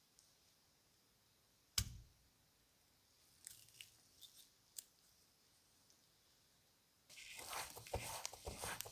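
Brass parts of a pair of old opera glasses being handled in gloved hands. There is one sharp knock about two seconds in and a few light clicks a little later. From about seven seconds there is a continuous scratchy rubbing, broken by small clicks, as the glasses are held and worked.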